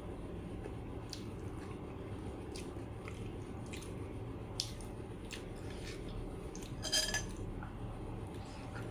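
Someone chewing food, with scattered small clicks and crunches over a steady low hum. A short high squeak comes about seven seconds in.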